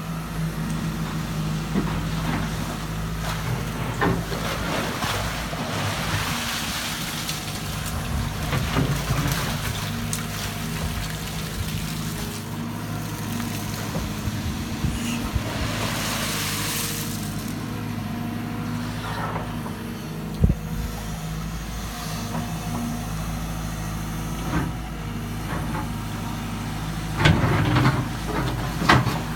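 Hyundai 140 excavator's diesel engine running steadily under digging load, with stretches of hiss as the boom and bucket work. A sharp clunk comes about 20 seconds in, and several knocks of the bucket near the end.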